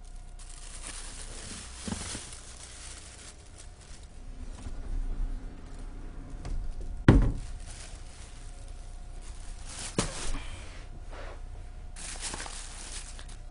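Hands rummaging and handling objects: rustling and crinkling, with a sharp knock about seven seconds in and a click about ten seconds in.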